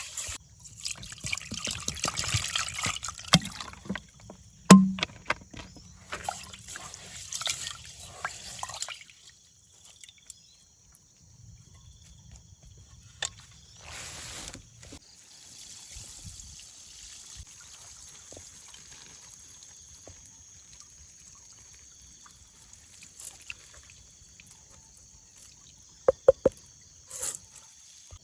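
Water being poured and splashing, with clicks of handling, for about nine seconds, then much quieter with a faint steady high hum and a few sharp clicks near the end.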